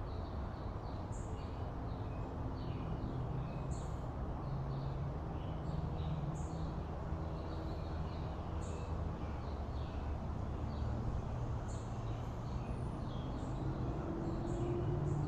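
Steady low background hum and hiss, with faint bird chirps every second or so.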